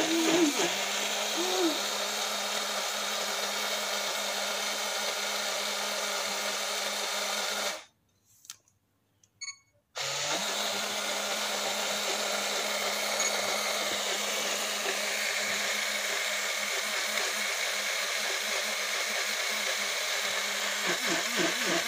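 Portable rechargeable cup blender's small motor running steadily, a whir with a low hum; it cuts out about 8 seconds in and starts up again about two seconds later, with a couple of faint clicks in the pause.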